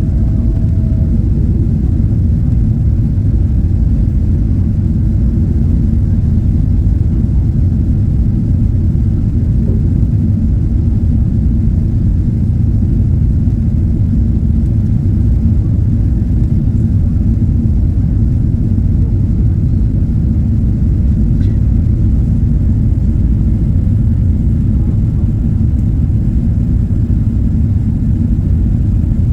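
Airplane noise: a steady, loud low rumble of engines and airflow that holds evenly without rising or falling.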